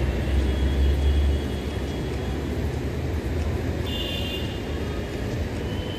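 Steady low background rumble, heavier for the first second and a half, with faint high thin tones about four seconds in and again near the end.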